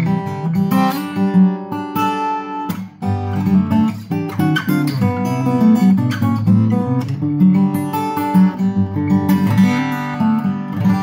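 Cat's Eyes CE-200 dreadnought acoustic guitar, freshly strung, played fingerstyle: a continuous passage of picked melody notes ringing over bass notes.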